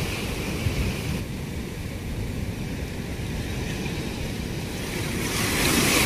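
Rough sea surf breaking and washing over a rock breakwater, a steady rushing noise that grows louder about five seconds in. Wind buffets the microphone with a low rumble.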